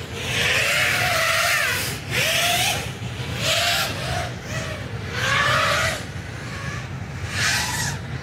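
5-inch FPV racing quadcopter's brushless motors (2306, 2580 kV, on 4S) spinning folding 5-inch props: a whine that rises and falls in pitch with the throttle as it rolls and turns, with about four louder surges of rushing prop noise.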